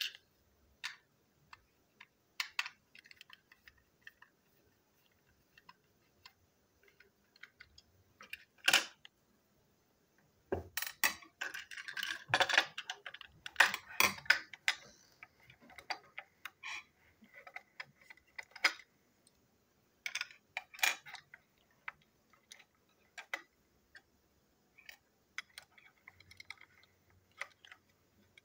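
Plastic parts of a toy steam locomotive's tender being handled and prised apart: scattered clicks and small knocks, with a busy stretch of clicking and rattling about halfway through.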